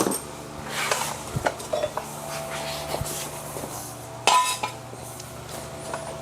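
Metal tools and jack equipment clinking and clanking as they are handled, with one sharp metal clank about four seconds in, over a faint steady hum.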